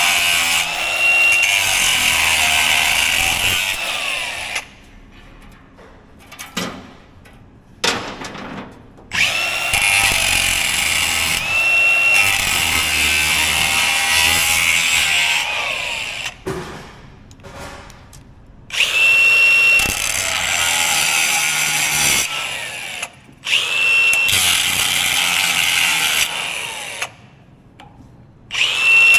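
Cordless angle grinder cutting a rusted-on steel exhaust pipe in repeated runs with short pauses between them. Each run opens with a steady high whine from the spinning disc that turns into a harsh grinding as it bites the metal.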